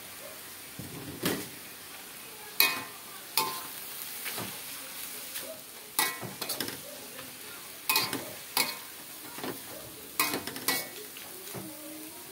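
Metal spatula stirring pounded cassava leaves in an aluminium wok, scraping and striking the pan in sharp ringing clanks, several in quick pairs. A steady frying sizzle runs underneath.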